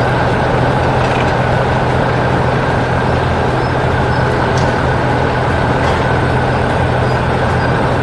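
Steady rumble of heavy construction-vehicle engines running, with a constant low hum and no change in level.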